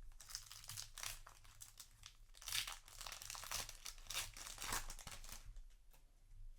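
Foil booster pack wrapper crinkling and being torn open by hand: a run of rustles and tearing for about five seconds, loudest in the middle, then dying away.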